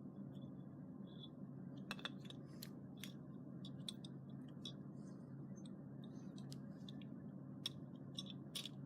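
Scattered light clicks and taps of deadbolt lock parts being handled and fitted together by hand, a few bunched together about two seconds in and again near the end, over a steady low background hum.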